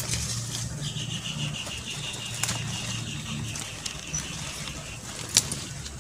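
Scissors snipping through a money plant stem with one sharp click near the end, amid light rustling of leaves. A bird gives a rapid, evenly pulsed high trill for a couple of seconds early on.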